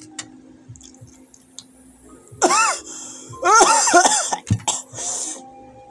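A man coughing and hacking loudly in three hoarse bursts, beginning about two and a half seconds in, with strained cries that rise and fall in pitch.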